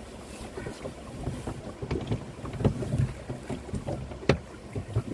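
Canoe being paddled: splashing paddle strokes and irregular knocks against the hull, the sharpest about four seconds in, with wind rumbling on the microphone.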